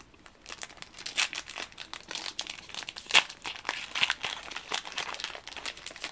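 Foil wrapper of a Yu-Gi-Oh booster pack crinkling and tearing in the hands, a dense run of quick crackles starting about half a second in.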